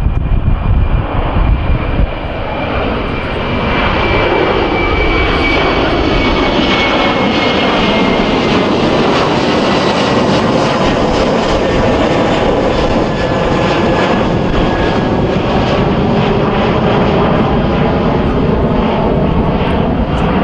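Qantas Airbus A330 jet airliner climbing out at takeoff power and passing overhead: a loud, steady jet engine roar with a high whine that slowly drops in pitch as it goes over.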